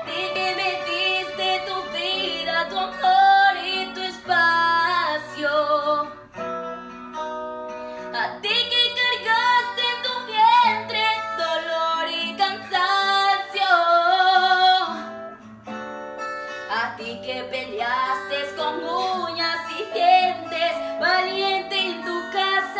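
A woman singing a slow Spanish ballad over guitar accompaniment, holding long notes.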